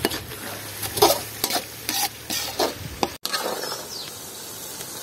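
A spoon or ladle stirring and scraping curry masala as it sizzles in a pan, in short irregular strokes. It breaks off abruptly a little past three seconds in, then a steadier, quieter sizzle goes on.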